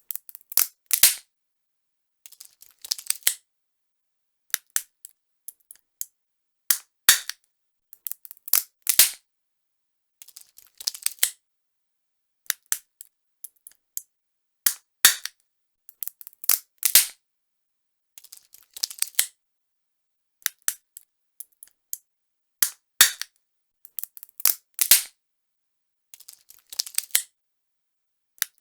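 A nutcracker cracking nuts one after another: clusters of sharp cracks and small crunching snaps every second or two, with short pauses between.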